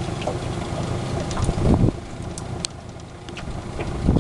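Boat motor running steadily at idle, with two louder low thumps, one about two seconds in and one near the end, and scattered small clicks.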